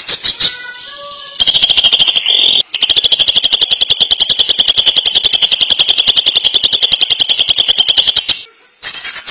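Greater green leafbird (cucak ijo) singing: a few short whistled notes, then a long, very fast rattling trill of sharp high notes, more than ten a second, with a brief break about two and a half seconds in. This is the 'ngentrok' rattle that bird keepers prize in a leafbird in full song.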